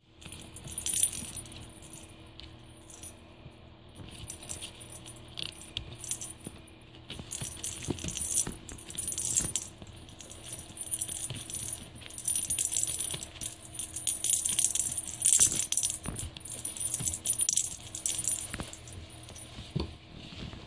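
Small bell in a hanging ball cat toy jingling and rattling in repeated bursts as kittens bat at it, with light knocks between.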